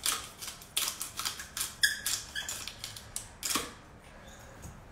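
Hand-twisted pepper mill grinding peppercorns into a food processor bowl: a run of irregular gritty clicks that stops about three and a half seconds in.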